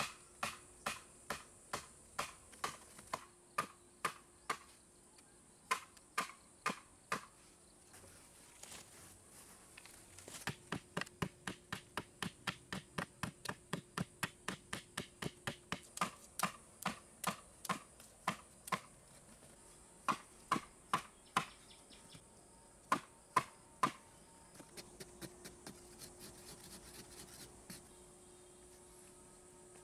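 Short-handled digging tool chopping into hard, dry earth: sharp blows about two to three a second, in runs broken by short pauses. A steady high insect drone continues behind.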